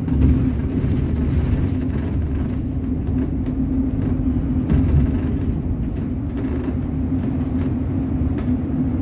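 City bus in motion, heard from inside the passenger cabin: a steady low rumble of drivetrain and road noise with a constant hum.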